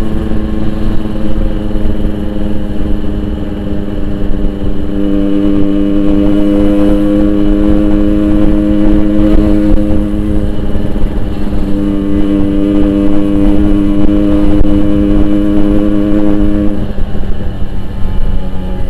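Yamaha RX-King 135's two-stroke single-cylinder engine breathing through an aftermarket Boban exhaust, running at steady cruising revs while being ridden, its pitch holding nearly level.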